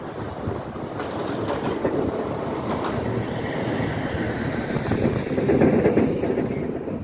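A train passing, growing louder about five seconds in.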